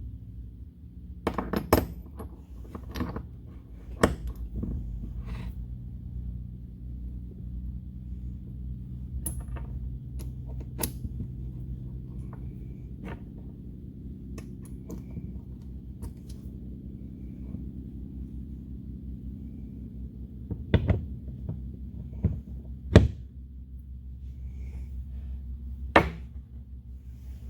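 Metal parts of a pneumatic impact wrench clicking and knocking as it is handled and worked on, a scattering of sharp knocks over a steady low hum.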